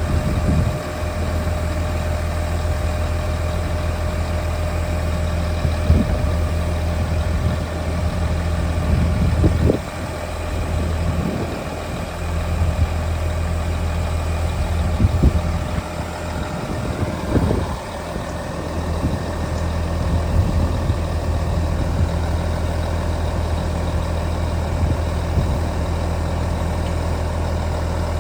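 Diesel engine of a Daewoo concrete pump truck idling steadily, a constant low hum with a faint steady whine above it. A few short knocks sound over it along the way.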